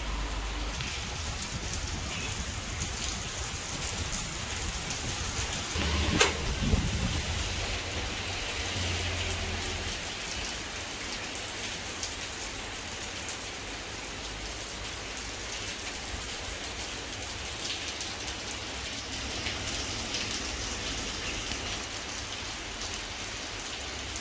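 Turbo electric fan running at high speed, a steady rushing of air, with a brief knock about six seconds in.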